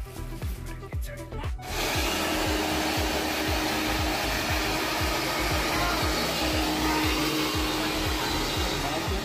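Hand-held hair dryer switched on about two seconds in, blowing steadily: a rush of air with a steady motor hum under it. Background music with a steady beat plays throughout.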